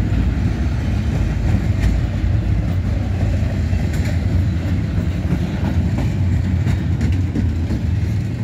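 Empty intermodal well cars of a freight train rolling past: a steady rumble of steel wheels on rail, with a few sharp clicks.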